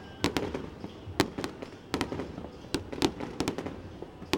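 Aerial fireworks bursting: an irregular run of sharp bangs and pops, sometimes several in quick succession.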